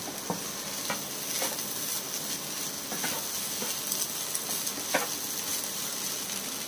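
Fried rice sizzling in a hot non-stick pan while a wooden spatula stirs and turns it, with irregular soft scrapes and knocks of the spatula against the pan through the steady hiss.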